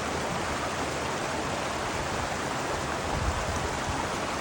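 Mountain stream rushing steadily over rocks, with a few low rumbles near the end.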